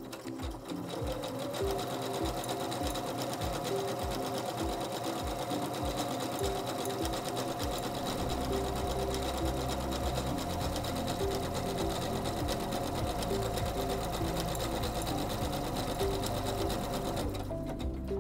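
SINGER C430 computerized sewing machine stitching a scallop decorative stitch at a steady speed, a continuous run of needle strokes with a steady motor tone; it stops shortly before the end.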